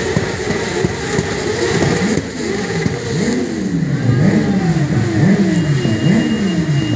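Sport motorcycle engines revving: several overlap at first, then one blips its throttle over and over, each rev a quick rise and fall in pitch, about one every second or less.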